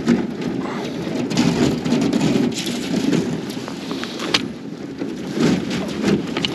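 Thin lake ice cracking and crunching as a small rowboat is rowed through it: a steady crackle of ice plates breaking and scraping along the hull, with sharper cracks every so often.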